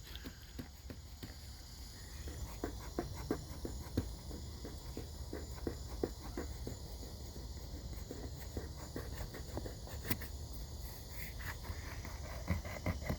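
Raccoon eating hard food: a fast, irregular run of small crunching clicks, with a steady insect chorus trilling behind.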